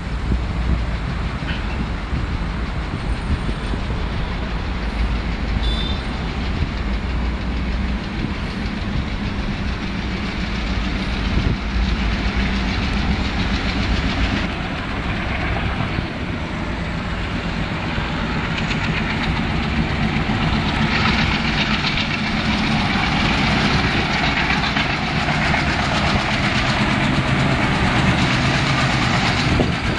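Twin ALCO diesel locomotives working hard under heavy throttle, a deep engine rumble with a hiss over it. It grows steadily louder as they approach. The thick black exhaust smoke marks the engines being run hard to pull the train.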